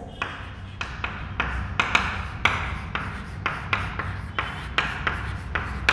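Chalk writing on a chalkboard: an irregular run of short scratching strokes as a word is written out.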